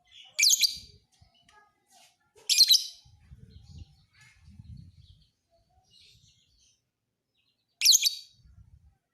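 Lovebird giving three short, loud, shrill chirping bursts, the second about two seconds after the first and the third about five seconds later.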